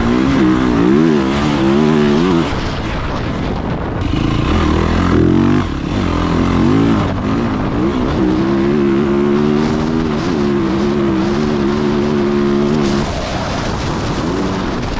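Dirt bike engine under throttle while riding through sand. The engine's pitch wavers up and down with the throttle in the first couple of seconds, climbs again around five to six seconds in, then holds steady at high revs from about eight to thirteen seconds before backing off.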